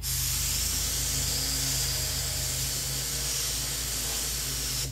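SATA 1500 SoLV HVLP spray gun spraying purple paint in one steady pass of about five seconds: an even hiss of air that starts and stops abruptly with the trigger.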